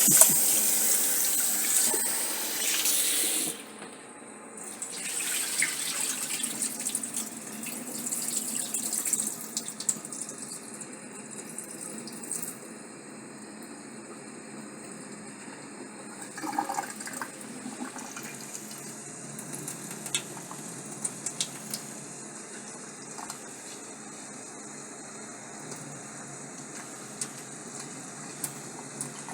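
Kitchen tap running into a pot of rice during washing, turned down or off about three and a half seconds in. After that, quieter water swishing with scattered small clicks as the rice is rinsed and drained.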